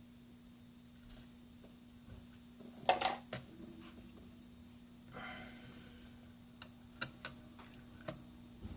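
Small clicks and taps from laptop parts being handled during reassembly: a sharp knock about three seconds in, a brief rustle a couple of seconds later, then a few light ticks, over a faint steady hum.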